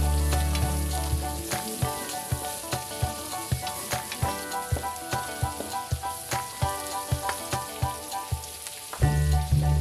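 Pork and vegetables sizzling as they are stir-fried in a wok, with a spatula scraping and knocking against the pan about two or three times a second.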